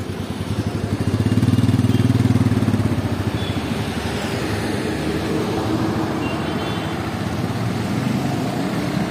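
Royal Enfield Meteor 350's single-cylinder engine pulling away, loudest between about one and three seconds in, then quieter as the bike rides off.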